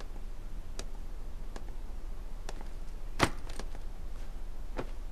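Slow footsteps of high heels clicking on a hard floor, a step about every three-quarters of a second, with one louder knock a little after three seconds in.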